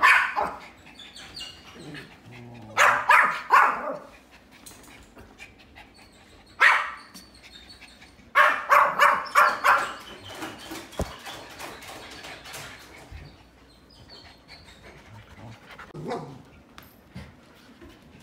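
Dog barking in short runs of high, sharp barks: one bark at the start, three quick barks about three seconds in, a single bark near seven seconds, then a rapid run of about six, and a last softer bark near the end.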